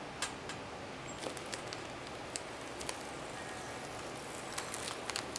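Masking tape being peeled off a gel-coated canvas by hand: faint crackles and scattered ticks over a steady low hiss, the ticks thickening near the end.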